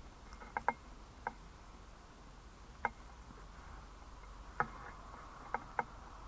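Scattered light clicks and ticks, about seven in all and irregularly spaced, from the extension cord's wires and fittings being handled during a splice.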